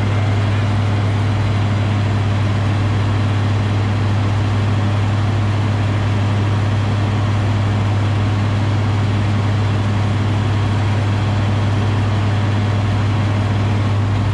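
Bizon Rekord Z058 combine harvester's six-cylinder SW-680 diesel engine running at a steady speed, with a strong low hum.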